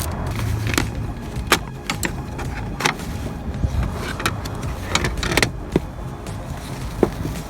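Scattered sharp plastic clicks and knocks from hands working a car's interior trim panel and its retaining clips, about eight in all at irregular intervals, over a steady low hum.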